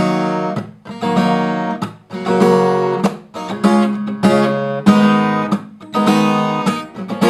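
Acoustic guitar strummed slowly through a chord progression, about one chord stroke a second, the strokes cut off short by muting the strings.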